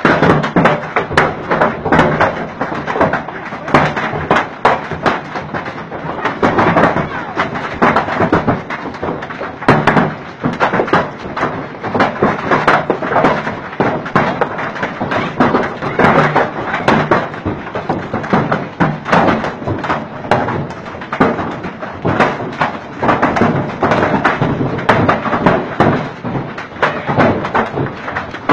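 Golf-ball-sized hail pelting down: a loud, dense, continuous clatter of hard hailstone impacts that swells and eases in waves.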